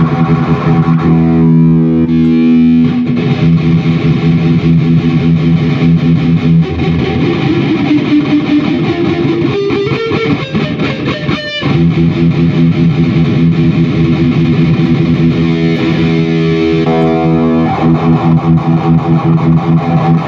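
Heavily distorted electric guitar played through a Zoom G1X Four multi-effects pedal and a Peavey 6505+ combo amp. It plays sustained ringing chords, with a warbling passage about halfway through that slides up in pitch and breaks off sharply, then held chords again.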